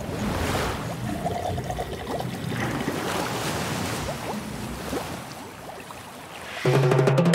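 Water-like rushing and swelling whooshes, sound-design effects for a logo intro. Music with sustained tones comes in near the end.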